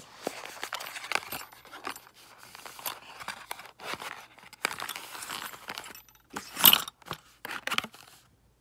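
A small cardboard box being slid open and handled, with the loose metal sewing-machine presser feet inside clinking and scraping against each other. Irregular clicks and rustles, with the loudest rattle about two-thirds of the way through.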